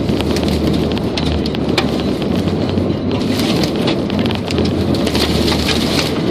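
Strong wind buffeting the microphone: a loud low rumble with crackling and ticking all through.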